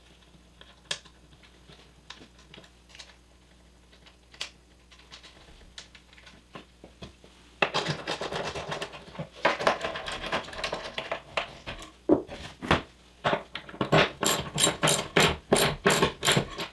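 Faint metal clicks of washers and nuts being fitted onto carriage bolts, then a socket ratchet wrench tightening the nuts: fast runs of ratchet clicks from about halfway, ending in a steady series of about five loud clicks a second.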